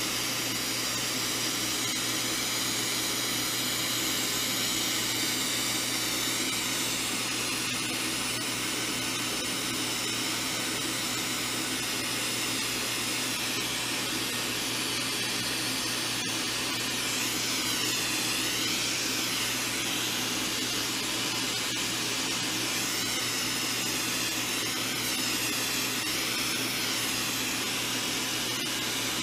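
Hand-held glassworking gas torch burning with a steady hiss, over a steady low hum. The hiss wavers slightly in tone in the second half.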